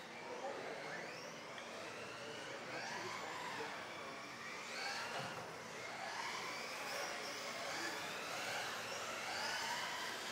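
Several radio-controlled offroad racing cars' electric motors whining together, their pitch rising and falling over and over as the cars accelerate and slow through the corners.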